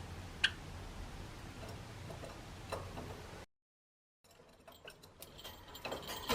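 Sparse small clicks and taps over faint room noise, from a pet Java sparrow moving about and pecking. The sound cuts out completely for most of a second midway, then the ticks come more often toward the end.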